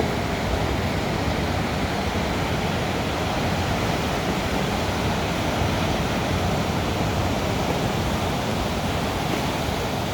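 Ocean surf washing onto a beach: a steady, unbroken rush of breaking waves.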